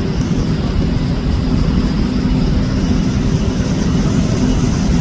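Steady engine and road noise from a moving vehicle.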